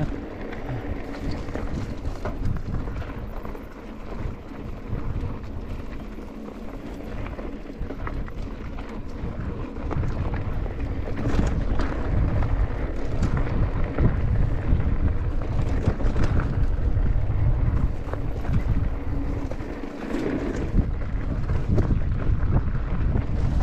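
Wind noise on the microphone during a mountain-bike ride, with tyres rolling over a dirt trail and scattered clicks and rattles from the bike. It grows louder about ten seconds in.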